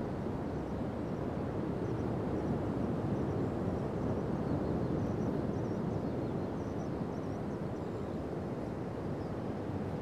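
Pacific Ocean surf breaking along a long sandy beach: a steady, low wash of waves that swells slightly a few seconds in.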